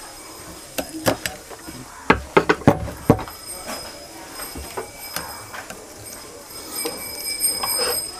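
Metal clicks and knocks as a screwdriver works at the shaft seal of a dismantled monoblock water pump, with a close cluster of sharp knocks about two to three seconds in and scattered clicks near the end.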